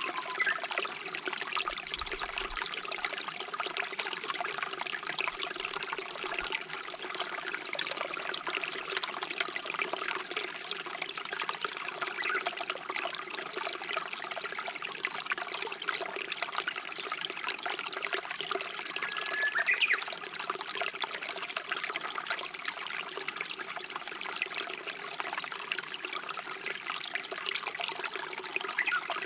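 Stream water running and trickling steadily. One short high whistle sounds about two-thirds of the way in.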